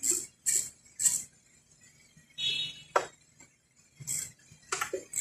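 Metal hand-tool work: short rasping strokes about two a second, in two runs separated by a pause, with a brief squeak and one sharp clink in the middle.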